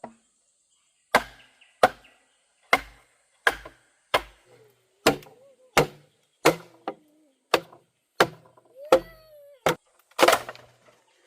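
Repeated chopping blows, about thirteen sharp strikes roughly two-thirds of a second apart, each with a dull thud; the loudest comes near the end.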